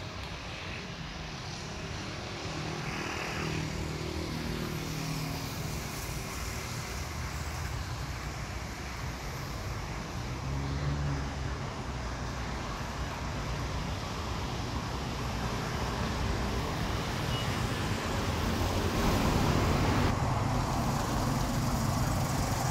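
Road traffic: cars running past, growing louder over the last few seconds as a vehicle comes close.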